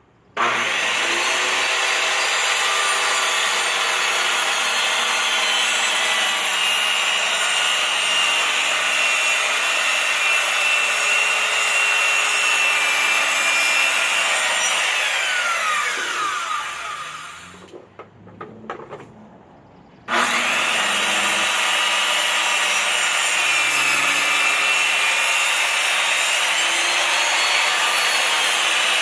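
Makita 7-1/4-inch circular saw starting up and ripping lengthwise through a 2x10 cedar board, its blade running with a steady high whine. About fifteen seconds in the whine falls away as the blade spins down. After a couple of seconds' pause the saw starts again and carries on cutting.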